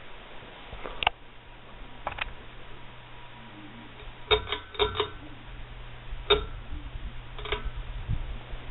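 Ceiling fan running with a steady low hum, with sharp clicks at uneven intervals: single ones early, a quick run of four about midway, and two more later.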